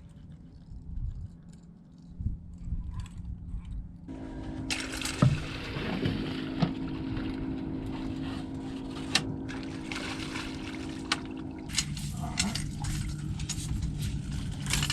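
A boat motor starts running about four seconds in, a steady hum that drops in pitch near the end, with water splashing and scattered knocks.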